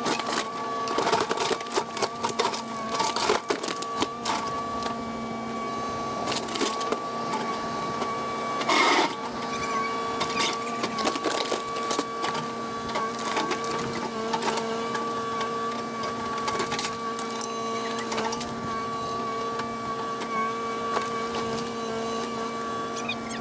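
Kubota KX080 excavator running with a steady mechanical hum and whine, its bucket breaking and scraping concrete in the pool wall with many irregular knocks and cracks. The loudest crunch comes about nine seconds in.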